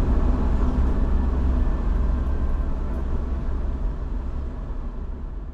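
Steady low rumble like a running vehicle, fading gradually out over the last couple of seconds.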